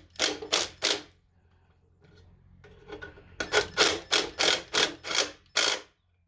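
Ratchet wrench tightening the muffler bolts on a Tecumseh mower engine: three quick ratcheting strokes, a pause, then a run of about eight strokes at roughly three a second.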